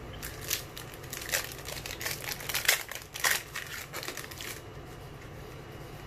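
Foil wrapper of a Panini Select baseball card pack crinkling as it is handled and torn open, a run of sharp crackles that stops about four and a half seconds in.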